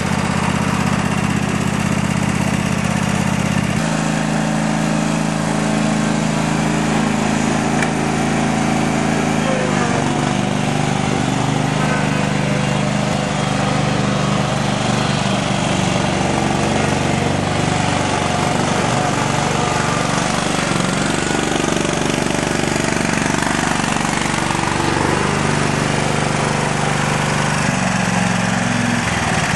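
Craftsman GT5000 lawn tractor's 22 hp Briggs & Stratton ELS V-twin engine running as the tractor is driven. Its note shifts about four seconds in, wavers through the middle while the tractor moves, and steadies again near the end.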